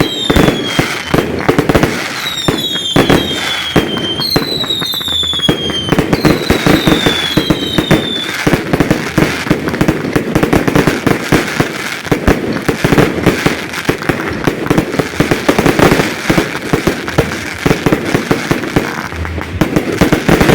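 Fireworks display: a dense run of bangs and crackling bursts, with several whistling shells that fall in pitch during the first eight seconds or so.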